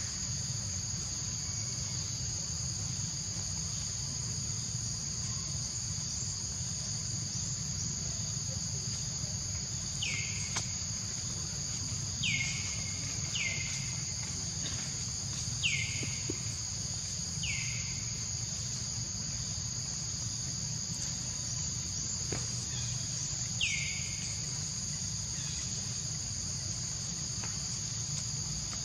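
Steady high-pitched drone of insects. Midway through, a series of six short whistled notes, each falling sharply in pitch, is heard over it.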